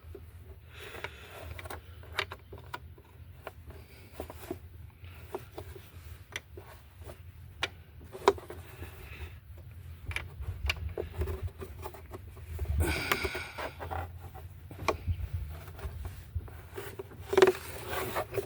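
Scattered small clicks and scrapes of a hand wrench and fingers working the screw on the plastic engine cover, with a louder scraping rustle about two-thirds of the way through.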